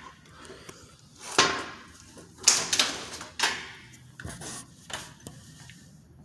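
Handling noises: a series of short, irregular knocks and rustles as objects are picked up and moved about.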